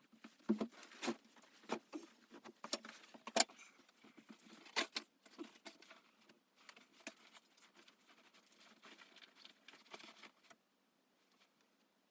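Irregular series of light clicks and knocks that stop about ten and a half seconds in.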